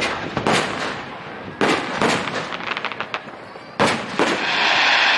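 Aerial fireworks shells bursting: about six sharp booms in close pairs, followed near the end by a dense crackling hiss.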